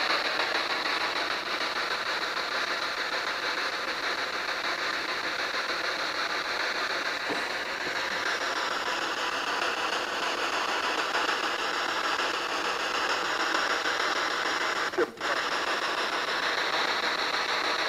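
Spirit box sweeping through radio frequencies: a steady static hiss that briefly cuts out about fifteen seconds in.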